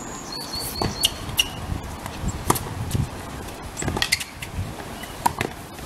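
Tennis balls struck by rackets and bouncing on a hard court during a rally: a string of sharp pops at irregular intervals.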